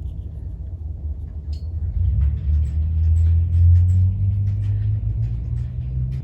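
A low rumble that swells in the middle and eases off toward the end, with faint light ticks as powdered sugar is sprinkled over a mug cake.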